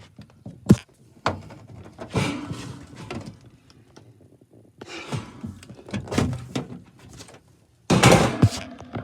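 Handling noise: a sharp knock just under a second in, then stretches of thunks and clatter, loudest near the end.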